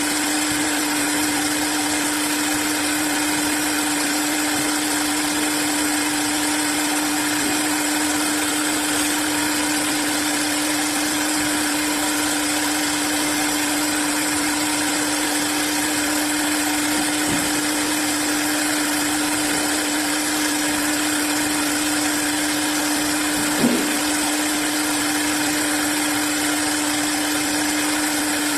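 Industrial CNC wood turning lathe running steadily, with a constant motor whine over a continuous hiss of machining. A single brief knock about three quarters of the way through.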